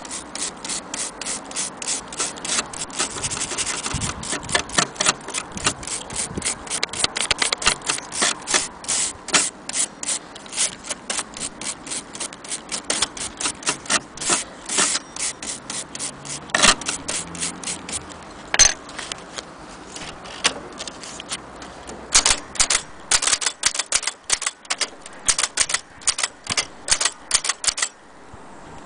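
Vintage Erika portable typewriter being typed on: a fast, uneven run of key strikes, several a second, with a few short pauses.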